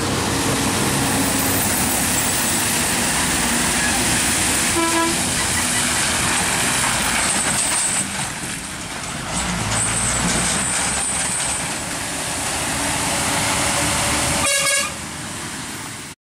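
A truck engine labouring through a hairpin bend, under a steady, noisy rumble. A vehicle horn toots briefly about five seconds in and again near the end.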